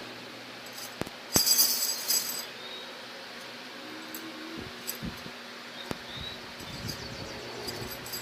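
A short run of light, high-pitched clinking, like glass or small metal pieces knocking together, lasting about a second from a second and a half in, after two small knocks. Scattered faint clicks and taps follow over a steady low hum.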